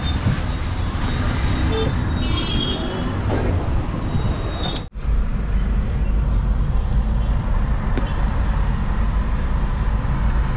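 Busy road traffic heard from inside a moving car: a steady low rumble of engine and tyres, with a short horn toot about two seconds in. Near the middle the sound drops out for an instant.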